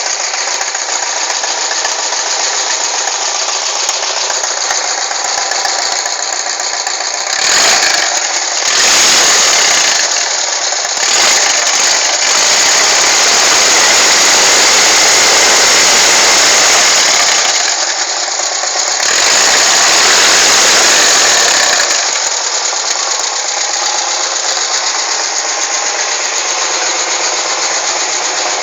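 1996 Volkswagen Kombi van's air-cooled flat-four engine idling, revved up briefly a few times, then held at higher revs for several seconds twice before settling back to idle.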